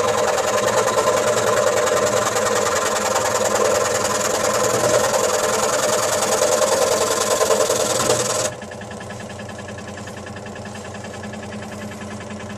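Axminster Craft AC405SS scroll saw running, its reciprocating blade cutting wood with a steady buzz. About eight and a half seconds in, the sound drops suddenly and the saw runs on more quietly.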